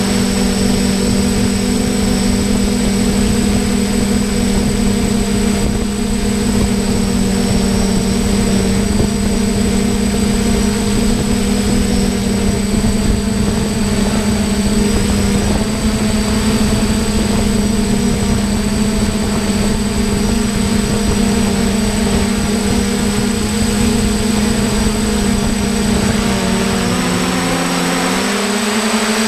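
Hexacopter drone's six electric motors and propellers droning steadily in flight, heard from the camera rig mounted on it. Near the end the pitch wavers up and down as the motors change speed.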